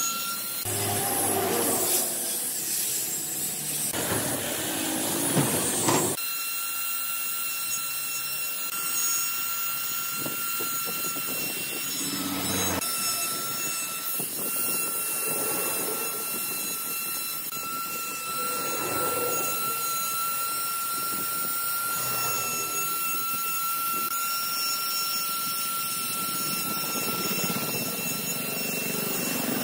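Handheld electric die grinder with a rotary carving burr working into hardwood: uneven and rough for the first six seconds, then a steady high whine with a hiss.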